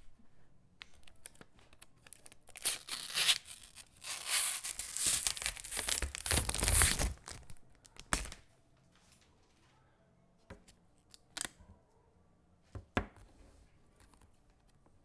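Packaging being torn open: several seconds of loud ripping and crinkling. After that come a few light taps and knocks as the contents are handled.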